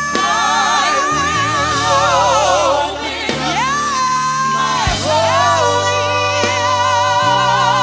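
Gospel worship song: singing with a wide vibrato, holding long notes over sustained bass and keyboard chords that change every couple of seconds.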